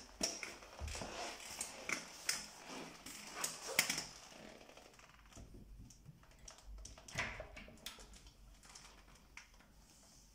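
Irregular clicking and rustling from handling in a small toilet cubicle, densest in the first few seconds. A sharper metallic click a little after the middle comes as the door's metal thumb-turn lock is turned.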